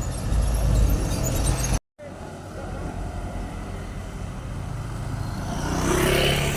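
Motor vehicle engines running: a loud low rumble, a sudden cut about two seconds in, then a quieter engine whose pitch rises and grows louder near the end.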